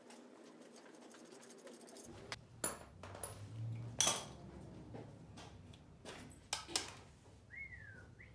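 Metal engine parts and tools clinking and knocking as they are handled and set down, with several sharp clinks, the loudest about four seconds in.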